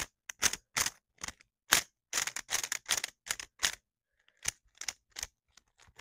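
Modded 3x3 speed cube being turned quickly by hand: a run of sharp plastic clicks as the layers snap round. There is a short pause a little after the middle, then a few more turns.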